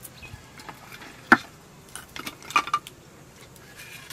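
A few sharp knocks and clicks of a stone roller against a flat stone grinding slab (sil-nora) as it is worked and handled. The loudest knock comes about a second in, with a small cluster of clicks a little later.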